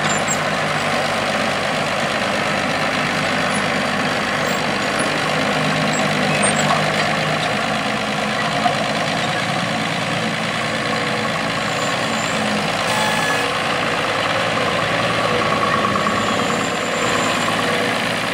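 International 856 tractor's engine running steadily under load, pulling a row-crop cultivator.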